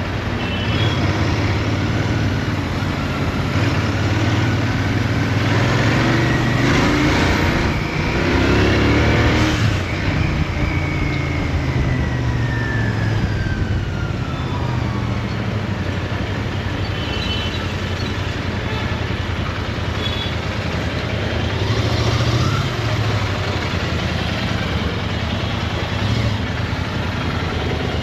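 Royal Enfield Interceptor 650's 648 cc parallel-twin running through its stock exhaust, heard from the saddle while riding in city traffic. The engine note climbs under throttle about six to nine seconds in and drops back around ten seconds, with surrounding traffic noise throughout.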